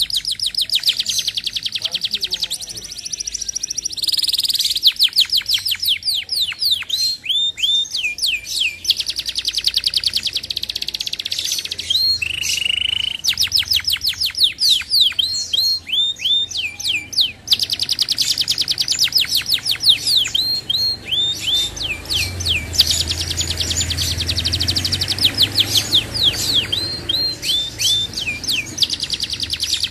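Domestic canary singing a long, unbroken song of fast high trills and quick downward-sweeping notes.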